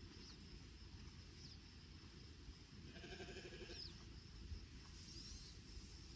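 A goat bleats once, faintly, about three seconds in, a short call under a second long. Faint high bird chirps come and go over a low steady outdoor rumble.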